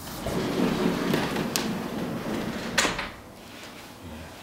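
A large glazed sliding door being slid along its track: a rumbling rolling noise for about three seconds with a light click partway, ending in a sharp knock as it reaches its stop, followed by a quieter background.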